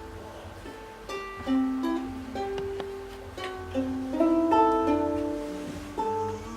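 Music on a plucked string instrument: a melody of picked notes, several a second, each ringing and fading.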